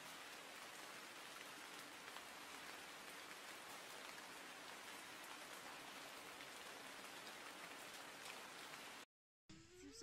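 Near silence: a faint, steady hiss with no distinct sounds in it, broken by a brief dead gap near the end.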